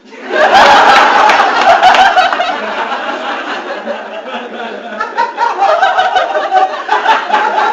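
Audience laughing in response to a punchline, breaking out suddenly just after the start, loudest for the first couple of seconds, then easing off but carrying on.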